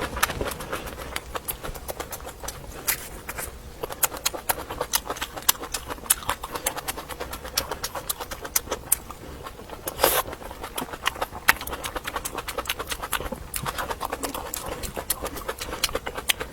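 Close-up chewing of crunchy food: a steady run of irregular crisp crunches, with one louder crunch about ten seconds in.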